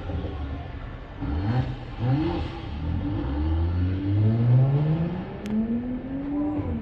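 Mercedes-AMG engine accelerating hard through several gears, its pitch climbing in repeated rising sweeps that drop back at each shift.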